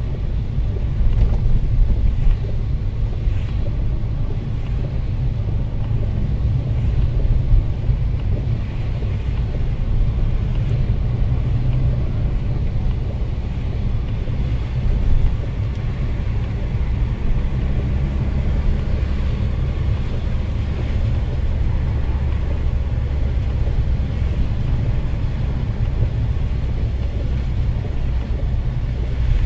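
Car cabin noise while driving on a rain-wet road: a steady low rumble of engine and road with a hiss of tyres on the wet pavement.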